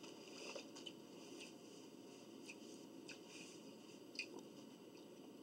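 Faint eating sounds over a low steady hiss: scattered soft, wet clicks of chewing and of biting into a Subway tuna sandwich, the clearest about four seconds in.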